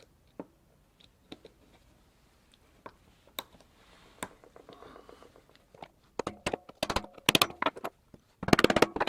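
Small metal parts clicking, then several runs of quick, light hammer taps on metal with a brief ringing, loudest near the end: lock washers being driven onto a drum brake's pivot pins.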